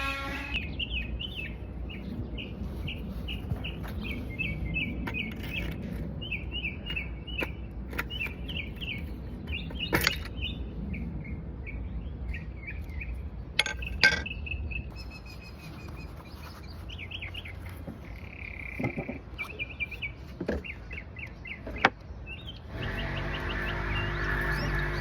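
Small birds chirping in quick repeated calls over a low steady rumble, with a few sharp clicks among them. Music comes in near the end.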